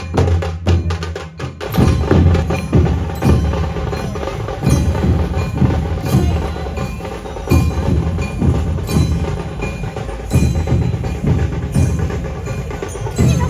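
Maharashtrian dhol-tasha ensemble playing: rapid sharp tasha drum strokes for the first couple of seconds, then a driving rhythm of heavy, deep dhol beats with crisp tasha hits over them.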